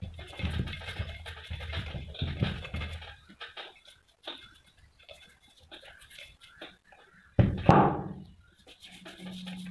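Small plastic brush scrubbing and scraping over a cast-metal gear wheel, with rough irregular strokes for the first three seconds, then softer scattered scratches. About three-quarters through there is one brief loud sound, and near the end a low steady hum begins.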